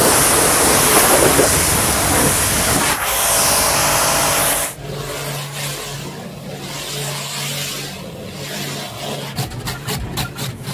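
High-pressure water jet from an electric pressure washer spraying with a loud, steady hiss. About five seconds in the hiss drops off sharply and becomes quieter and muffled, heard from inside the car, over a low steady hum. Near the end comes a quick run of taps as the jet strikes the window glass.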